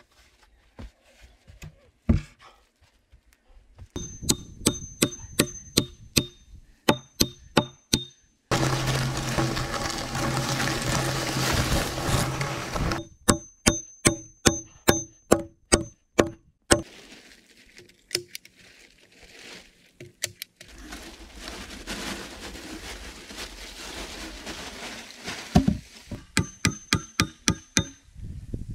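Axe blows chopping into logs, in several quick runs of sharp strikes, a few a second. Between the runs there are seconds of steady rushing noise.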